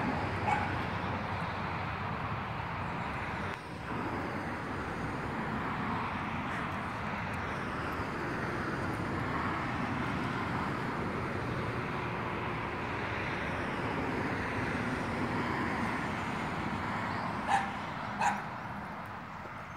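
Husky puppy giving short barks, twice at the start and twice near the end, over a steady background noise.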